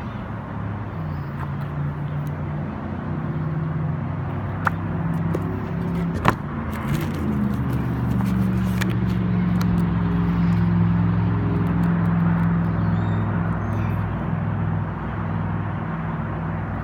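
A motor vehicle engine running steadily close by, its low hum shifting slightly in pitch about seven seconds in. Two sharp clicks come about five and six seconds in.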